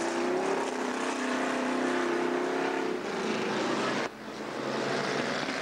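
Race car engine running hard as a sedan laps a dirt speedway track, a steady pitched drone that rises slightly early on and fades a little about three seconds in. The sound drops out abruptly about four seconds in and then comes back.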